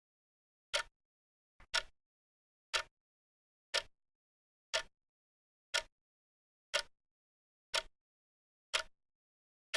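Clock ticking once a second, each tick a short sharp click with complete silence between.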